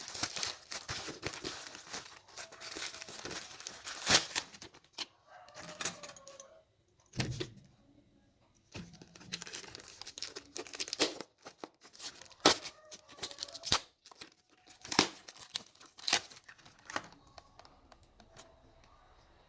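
Parcel packaging being torn open and crinkled by hand: irregular rustling and tearing, broken by several sharp, loud snaps.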